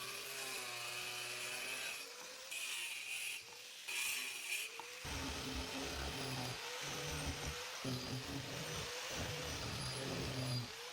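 Woodworking tools at work on wood: about three short scraping strokes in the first half, then a power tool running in several bursts that stop and start again.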